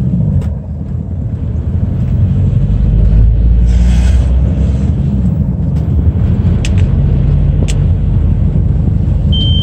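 Inside the cabin of a car with a swapped-in 2.0 TDI diesel engine, under way: steady engine and road rumble that grows louder a couple of seconds in, with two sharp clicks later on. Near the end a steady high warning beep starts. It is the oil pressure warning, which the owner puts down to a faulty sensor, since the pressure itself is fine.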